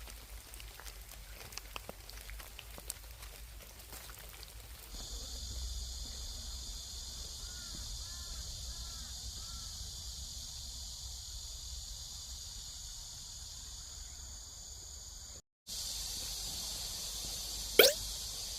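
Outdoor forest ambience: after a few seconds of faint background with small clicks, a steady high-pitched insect chorus sets in and continues, with a few short chirps over it. A sudden dropout is followed by the chorus again, and one loud, sharp falling chirp sounds near the end.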